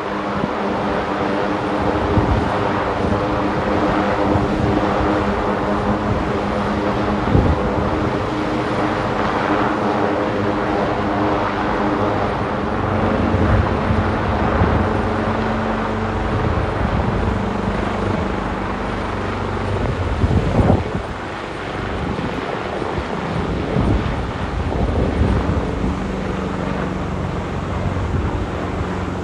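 AgustaWestland AW139 rescue helicopter's rotors and turbine engines running steadily as it hovers low over the sea and then moves off, with occasional gusts of wind on the microphone.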